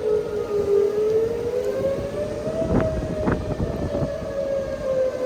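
Outdoor tornado warning siren wailing, its pitch sagging, rising about halfway through and then easing down again. A low rumble of wind on the microphone runs beneath it.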